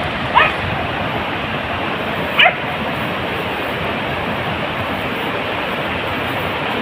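Two short high yelps from a beagle, about two seconds apart, over a steady rushing noise.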